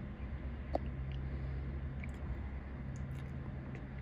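Steady low hum of distant ambience, with scattered faint clicks and ticks and one brief short tone about three-quarters of a second in.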